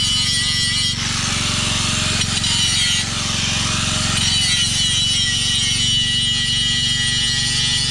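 Electric angle grinder running with its disc ground against a welded joint on a rusty steel tube, grinding off old weld metal to clean it up. The high motor whine runs steadily, with a harsher grinding rasp strongest from about one to four and a half seconds in as the disc bites.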